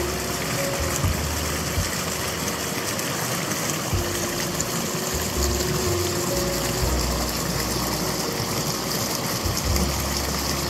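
Small woodland stream rushing and splashing over rocks, a steady hiss of running water. A low rumble comes and goes underneath it.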